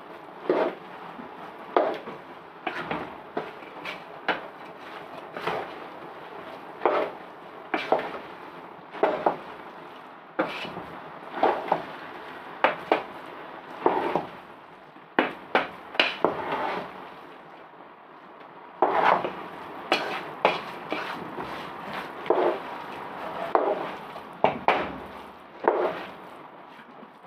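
A utensil knocking and scraping against a cooking pot as chicken keema filling is stirred, with sharp irregular clacks about once a second.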